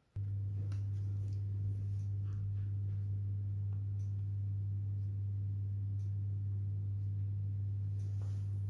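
A steady low electrical hum that cuts in abruptly just after the start and holds unchanged, with a few faint clicks and rustles over it.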